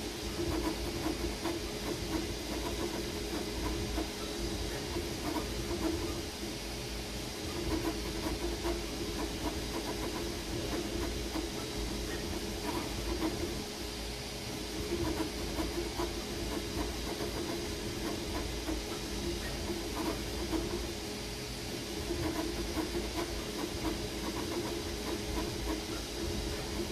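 Creality Ender 3 V3 KE 3D printer printing: its stepper motors whir in shifting spurts as the head and bed move, over the steady hiss of its cooling fans.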